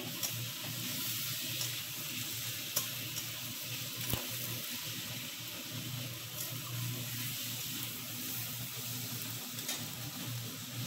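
Chopped onion, capsicum and tomato sizzling in oil in a kadhai, a steady hiss, with a few light clicks of a metal spatula as they are stirred.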